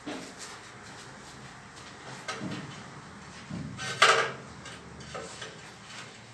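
Knocks and scrapes of tile-setting work, a handful of separate clatters with a louder, longer scraping clatter about four seconds in.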